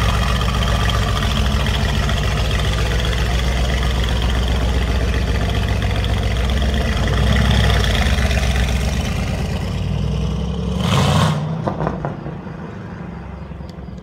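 Mercedes-AMG C63 S twin-turbo V8 held at high revs during a burnout, with a steady hiss from the spinning rear tyres. About eleven seconds in there is a short loud burst, then the engine sound falls away as the car drives off.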